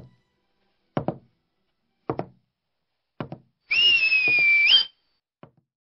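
Footstep sound effects: slow, evenly spaced double knocks about once a second, then a single held whistle note that rises at its end about two-thirds of the way in.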